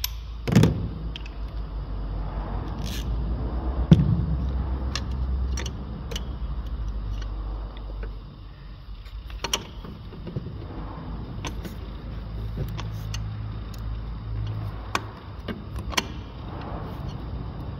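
Hand tools clicking and knocking against metal while being worked at an exhaust clamp, with a couple of louder knocks, one just after the start and one about four seconds in, over a low steady hum.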